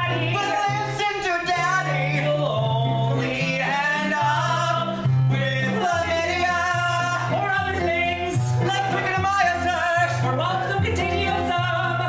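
Two men singing a musical-theatre number, backed by keyboard and electric guitar, with held bass notes changing about once a second.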